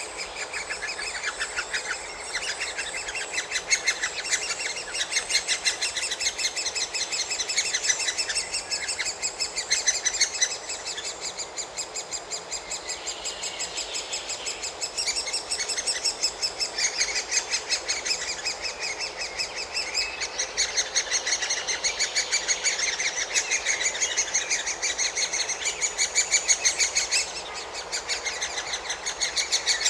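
Great spotted woodpecker nestlings begging in chorus: a continuous rapid chatter of short high calls that swells and fades, a sign that the chicks are calling for food.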